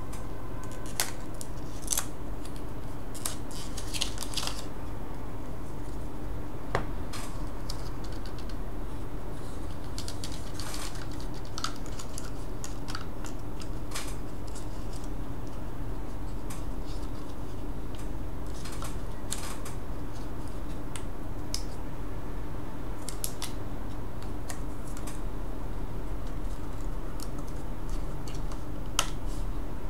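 Scattered light clicks and taps of small laptop parts and tools being handled, irregular and a few seconds apart, over a steady low hum.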